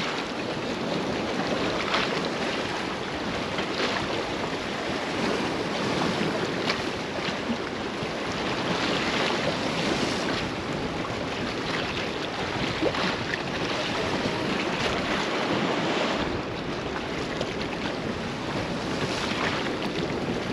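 Waves washing against the rocks of a breakwall, with wind buffeting the microphone.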